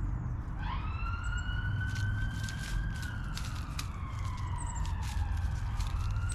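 An emergency vehicle siren wailing: its pitch rises about half a second in, holds, sinks slowly, then rises again near the end. Scattered sharp clicks sound throughout over a steady low rumble.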